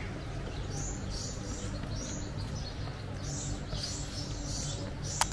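Small birds chirping, short high calls repeating about twice a second, over a steady low hum. A sharp click comes just before the end.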